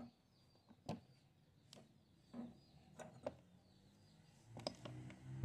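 Faint handling noise: a few short clicks and rustles as the meat grinder's cutting plate is handled and the packed mass of ground chocolate eggs, foil and plastic is pulled out.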